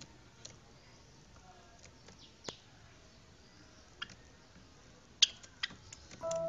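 Java sparrows giving short, scattered chip calls, a few seconds apart, with a quick cluster of sharper notes about five seconds in. Music starts just before the end.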